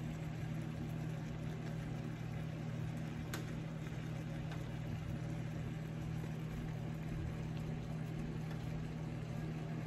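Steady low hum of a running kitchen appliance fan, unchanging throughout.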